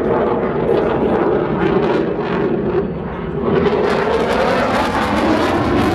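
Aircraft engine noise that holds steady, dips briefly about three seconds in, then rises again.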